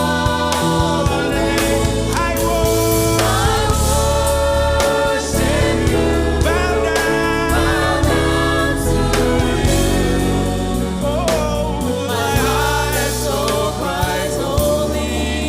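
Gospel choir singing over a live band with bass and drums.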